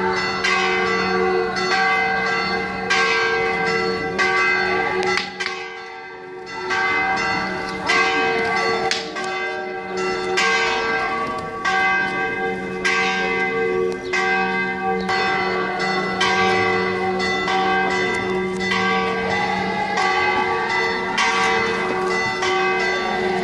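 Church bells ringing a continuous fast peal, stroke after stroke with the tones hanging on, briefly dipping about six seconds in.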